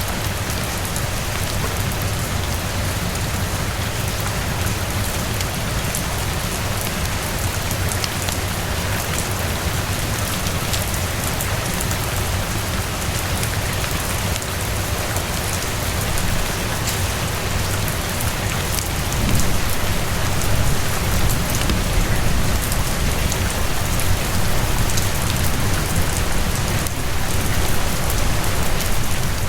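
Steady heavy rain falling on surfaces, an even hiss with a low rumble beneath it. The rain swells slightly louder about two-thirds of the way through.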